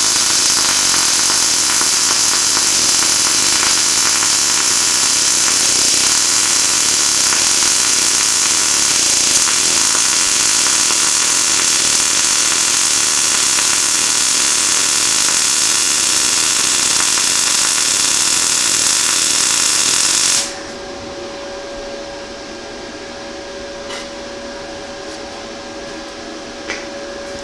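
Century flux-core wire-feed welder arc running a bead on 22 gauge sheet steel at a hotter setting: a steady, loud arc noise for about twenty seconds that cuts off suddenly when the trigger is released. After it a much quieter steady hum remains, with a few faint clicks.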